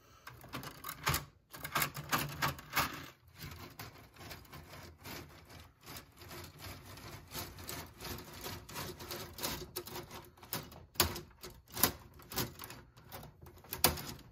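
Lego roller coaster's plastic lift-hill chain clattering as it is hand-cranked, hauling the coaster train up the hill: a dense run of rapid small plastic clicks, with brief pauses and a few louder clicks near the end.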